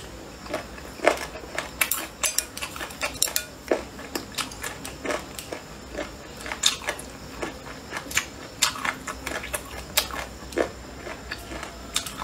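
Close chewing of boneless chicken feet with the tendons left on: irregular clicks and crunches from the mouth.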